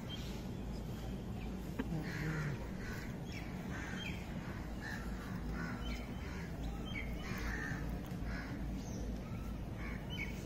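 Crows cawing repeatedly, with many short harsh calls throughout.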